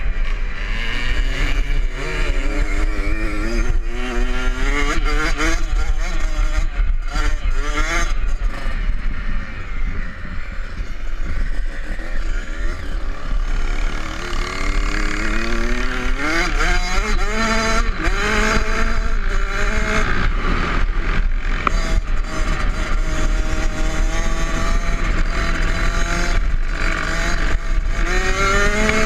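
Kawasaki KX65's 65 cc two-stroke single-cylinder engine heard from onboard, revving up again and again as the bike accelerates, with a lower, quieter stretch around the middle. Wind rumbles on the microphone throughout.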